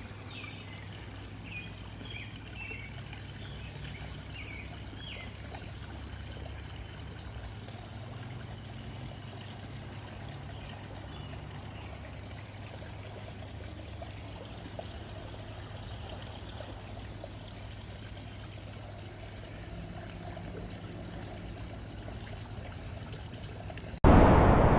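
A small stream trickling steadily, with a few short high chirps in the first few seconds. Near the end it cuts suddenly to a much louder, even rushing noise.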